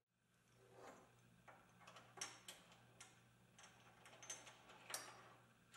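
A few faint, sharp metallic clicks and taps of an Allen key working socket-head cap screws in an aluminium extrusion frame, over near silence.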